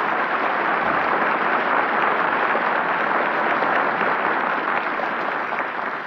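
Studio audience applauding at the end of an orchestra number, heard on an old radio broadcast recording.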